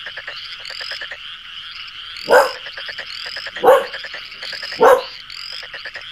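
A dense chorus of animal calls: rapid croaking pulses and repeated rising chirps. Three much louder bark-like calls stand out in the middle, about a second and a half apart.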